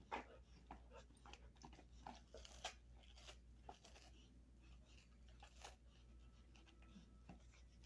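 A dog gnawing on a beef cheek roll: faint, irregular crunches and clicks of its teeth on the chew.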